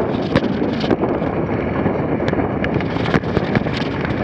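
Dog sled moving fast over packed snow: a steady hiss and rumble of the runners with wind on the microphone, broken by a few sharp knocks and rattles from the sled.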